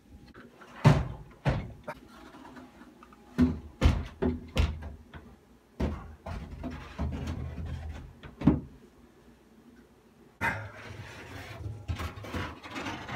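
Wooden sauna panels knocking and bumping as they are handled and fitted into place: a string of sharp wooden knocks, then a longer stretch of scraping and shuffling from about ten seconds in.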